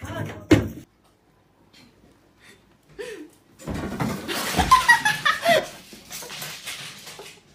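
A sharp knock or clatter right at the start. From about four seconds in, a person laughs hard, breathy and in squealing bursts, and it tails off near the end.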